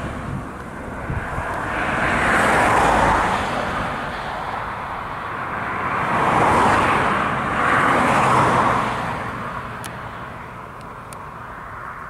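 Claas Lexion 7500 Terra-Trac combine harvester working through standing barley: a steady mechanical rush. It swells and fades, loudest about two to three seconds in and again from about six to eight seconds in.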